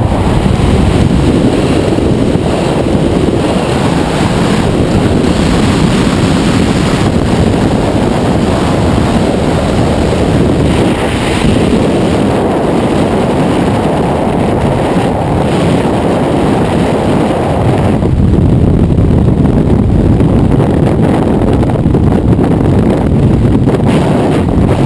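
Freefall wind rushing over a skydiver's camera microphone: loud, steady rumbling noise with no let-up.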